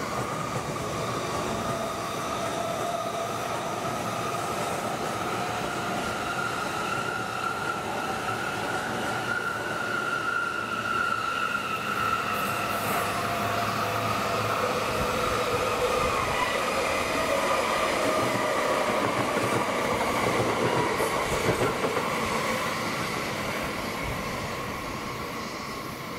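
A train running past on the tracks, its rumble carrying a steady high-pitched ringing tone that drifts slightly in pitch. It grows louder past the middle, then fades near the end.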